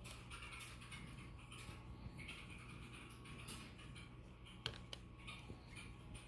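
Glossy trading cards being handled and flipped through by hand: faint sliding, rustling and tapping of the card stock, with one sharper click about two-thirds through, over a low steady hum.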